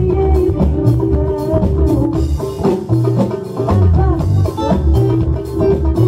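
Live band music from violin, electric bass guitar, keyboard and drum kit, with a pulsing bass line under a bending melody line.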